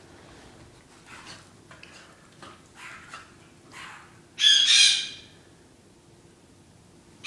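A few faint short cries, then one short, loud, high-pitched squeal about four and a half seconds in, from a play-fighting pet.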